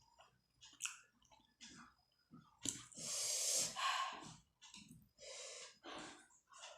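Close-miked eating of chicken momos: wet chewing with small clicks and lip smacks, and a long, loud breathy intake about three seconds in.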